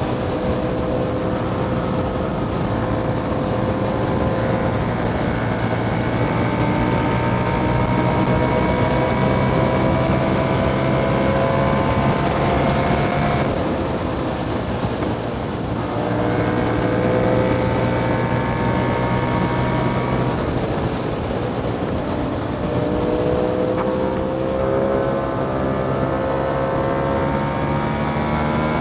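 2021 KTM Duke 890R's parallel-twin engine through an Austin Racing GP1R catless exhaust, pulling with its pitch climbing slowly in long runs. About 13 seconds and again about 20 seconds in, the throttle drops off briefly before the engine pulls up again.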